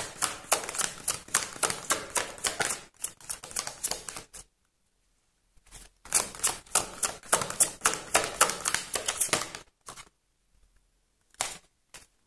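A deck of cards being shuffled by hand, the cards slapping together in fast runs of clicks: two long bouts with a short pause between, then a couple of single slaps near the end.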